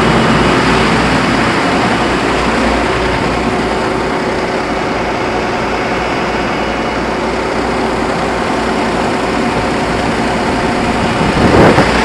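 John Deere tractor engine running steadily at a fast idle, driving a grain auger that is unloading shelled corn, with a constant rush of machinery noise.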